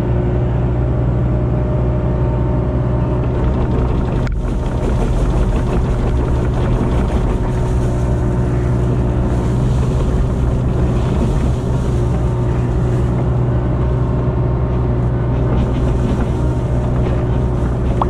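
Kubota KX057-4 mini excavator's diesel engine running steadily at working revs while the boom and bucket move, heard close up from the cab.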